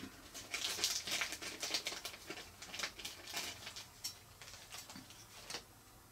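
Fly-tying materials being handled at the vise, making a light crackling rustle with many small irregular clicks. It thins out after about four seconds and stops after a last click at about five and a half seconds.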